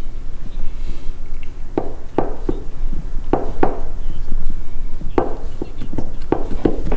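John Deere D170 mower blade being rocked by hand on its spindle, knocking about nine times with a short metallic ring, often in quick pairs: the play of a worn spindle bearing.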